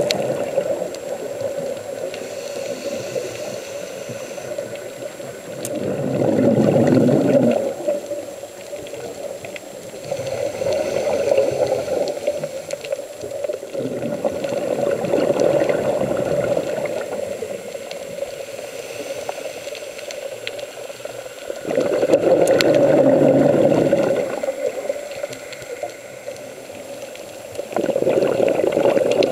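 Scuba diver's breathing heard underwater: a bubbling rush of exhaled air swells up for about two seconds every four to six seconds, five times, over a steady low hiss.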